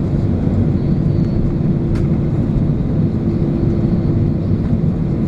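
Airbus A320 cabin noise during taxi after landing: the engines running at idle under a steady low rumble with a constant hum. A faint click about two seconds in.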